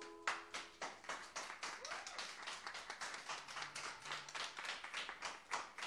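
The last ukulele chord rings out and fades in the first second, then a small group of people claps, faint and uneven, individual claps still distinct.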